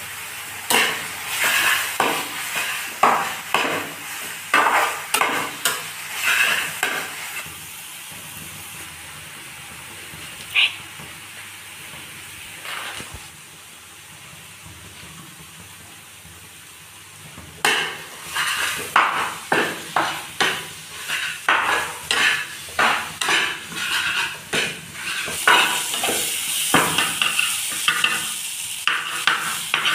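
A spatula stirring and scraping frying tomato-onion masala in a non-stick frying pan, in quick repeated strokes over a steady sizzle. The strokes stop for about ten seconds in the middle, leaving only the sizzle, then start again.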